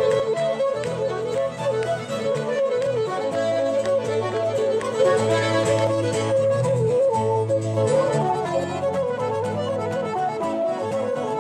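Live folk band playing a Celtic-style tune on fiddle, wooden flute and piano accordion, with the fiddle leading the melody over the accordion's steady bass notes.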